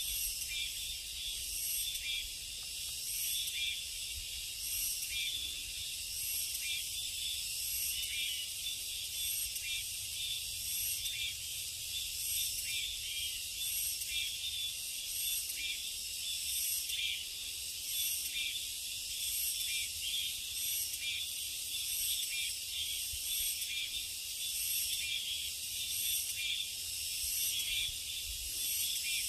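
Dense chorus of summer insects: a steady, high-pitched shrilling that pulses faintly.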